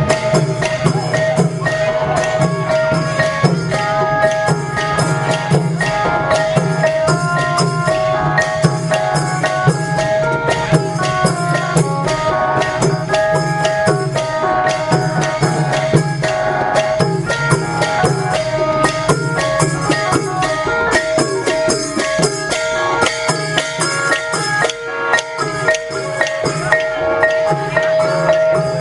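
Instrumental music: a quick melody of short struck notes, like a xylophone, over a steady held drone, with constant fast percussion.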